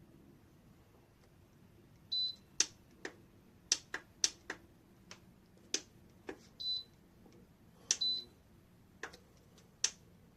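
Sharp clicks of buttons being pressed on a Lasko tower fan heater's control panel, with three short, high electronic beeps from the unit among them.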